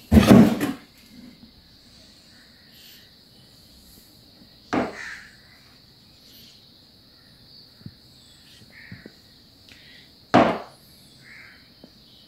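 Three sharp knocks on the kitchen worktop, about five seconds apart, as samosa pastry strips and utensils are handled on a glass cutting board, with faint small clicks in between and a faint steady high-pitched tone.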